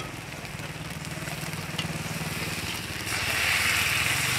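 Coconut-milk batter sizzling in the cups of a hot cast-iron kanom krok pan. About three seconds in, a louder hiss sets in as more batter is poured from a metal pitcher into the cups. A steady low hum runs underneath.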